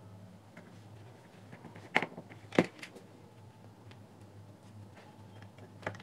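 A few sharp small clicks of a screwdriver and screws against the plastic housing and circuit board while the JBL Clip 2's motherboard is screwed back in: two close together about two seconds in, a fainter one near the end, over a faint low hum.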